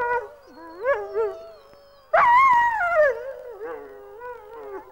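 A pet dog howling, joining the overlapping, wavering howls of wolves. A loud howl comes in suddenly about two seconds in and slowly falls in pitch.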